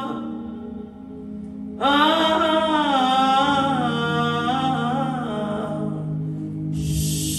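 Wordless singing: a single voice holds and slowly bends a melody over a steady low drone, entering about two seconds in. There is a short hiss near the end.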